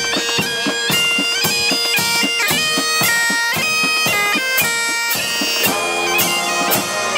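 Military pipe band playing: bagpipes carry a tune over their steady drone, with drum beats keeping time. The drone drops out about six seconds in.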